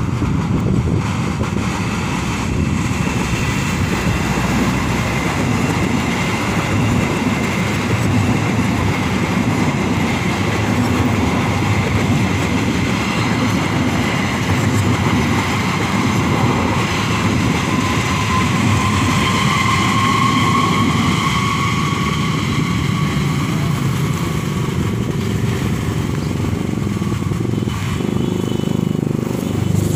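Passenger train running past on the track: a steady rumble with high whining tones held above it.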